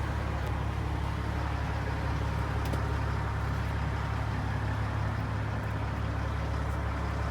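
A vehicle's engine running with a steady, low rumble.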